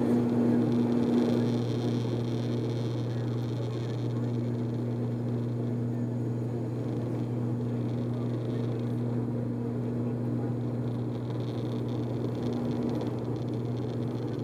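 An ATR 72-500's twin Pratt & Whitney Canada PW127 turboprops and six-bladed propellers running with a steady low drone and a higher hum over it.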